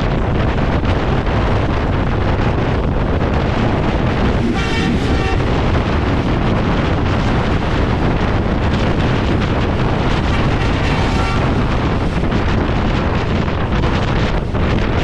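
Steady rush of wind and running noise from the Tezgam Express passenger train at speed, with heavy wind buffeting on the microphone. A brief high tone cuts through twice, about five and eleven seconds in.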